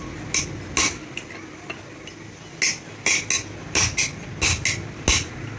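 Hammer tapping a steel drift held against a bearing on a shaft: about ten sharp metal-on-metal taps, a few in the first second, then a quicker irregular run from about two and a half seconds in.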